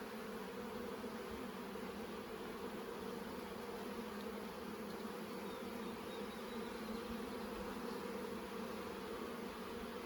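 Honeybees humming steadily around an open, crowded hive, a low even buzz of many bees at once.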